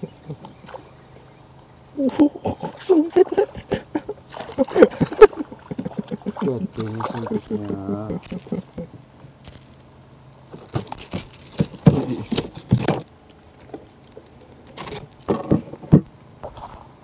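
Steady high-pitched chorus of insects, with scattered knocks and handling sounds over it, the loudest a cluster about eleven to thirteen seconds in.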